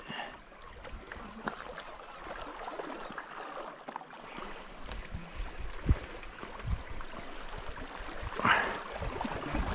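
Sea water washing and gurgling at the shoreline, with scattered small knocks and clicks.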